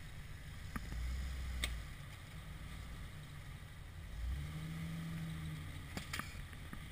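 Jeep Wrangler engine heard from outside the vehicle, running low and swelling twice in short bursts of throttle as the Jeep works against a stump it is hung up on. A couple of light knocks near the middle and near the end.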